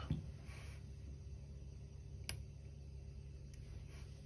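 Small repair tools and parts being handled on a workbench: a few light clicks, one sharp click about two seconds in, over a low steady hum.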